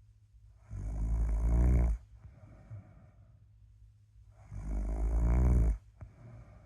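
A sleeping person snoring: two long, loud snores about four seconds apart, each lasting over a second, with quieter breathing in between.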